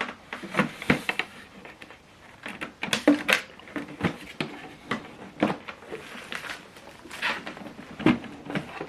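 A USB cable being handled and its plug pushed into a printer's port: scattered small plastic clicks, knocks and scrapes at irregular intervals.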